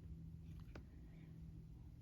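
Near silence: steady low room hum, with one faint short click and a light rustle a little before the middle.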